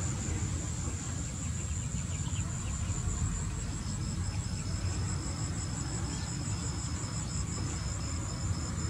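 Insects trilling in fast, even pulses, one high-pitched, joined about four seconds in by a second, slightly lower trill, over a steady low background rumble.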